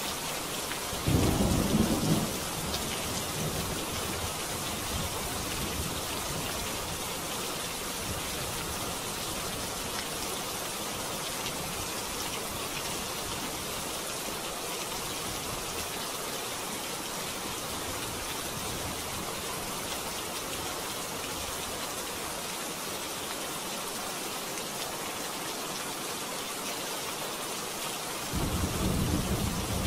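Steady rain hissing, with two rolls of thunder: a short, loud one about a second in, and another starting near the end.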